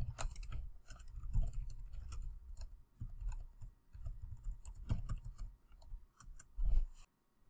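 Typing on a computer keyboard: an uneven run of quick key clicks that stops near the end.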